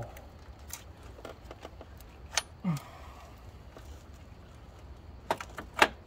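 Scattered metal clinks and taps of hand tools and parts while the starter motor is worked free in a tight engine bay, with a quick run of louder clanks near the end.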